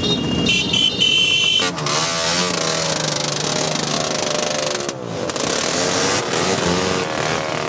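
Motorcycle engines running and revving as they pass, the pitch rising and falling several times. A high steady tone sounds over them until a little under two seconds in.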